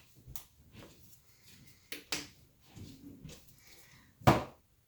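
Paint cups and bottles being handled on a work table: a few light clicks and taps, then one sharp knock about four seconds in as something is set down.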